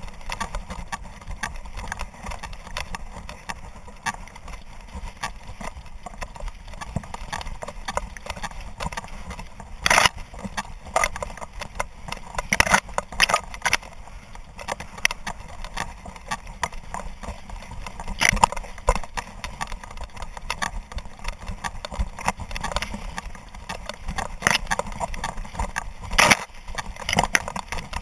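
Camera harness on a running hunting dog: dry grass stems brushing and scraping against the camera, with the dog's footfalls and irregular sharp knocks against the mount, a few of them louder.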